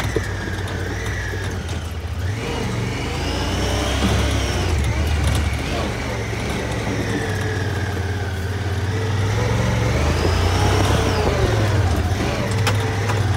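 Side-by-side UTV engine and drivetrain running under way on a dirt track, heard from inside the open cab: a steady low drone with a whine that rises and falls as it speeds up and slows.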